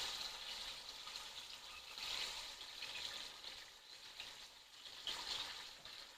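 Breaded chicken pieces frying in hot oil, a steady sizzle that swells and eases a little.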